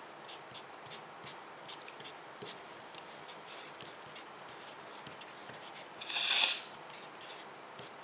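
Marker pen writing on paper in short strokes, with one longer, louder rub about six seconds in.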